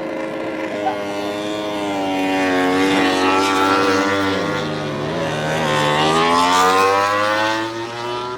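Racing motorcycle engine at high revs. Its pitch falls steadily as the bike slows, drops sharply about four and a half seconds in, then climbs again as it accelerates away.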